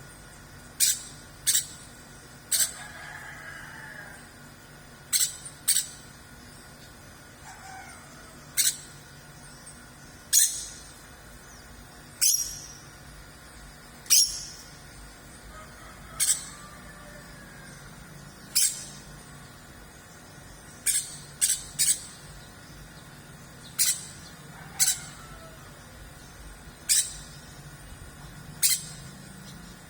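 Caged songbird giving a few faint gliding chirps, among short, sharp, high-pitched bursts that come irregularly every second or two.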